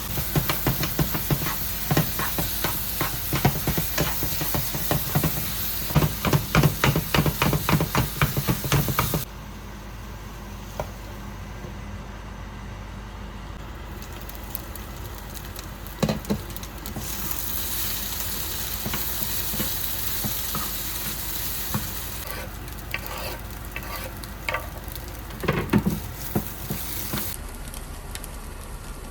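Chicken sizzling in a frying pan while a utensil stirs and scrapes it in quick repeated strokes. About nine seconds in the sound drops suddenly to quieter sizzling, with a few more scrapes near the end.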